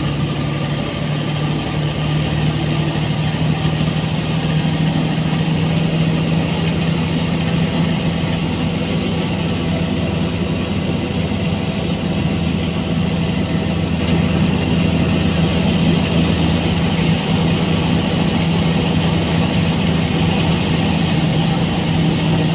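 Mercedes-Benz O405N2 city bus engine running, heard from inside the passenger cabin as a steady low hum with a few faint ticks.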